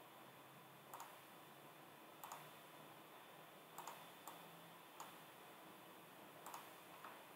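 Faint computer mouse clicks, about seven of them at uneven intervals, over quiet room tone.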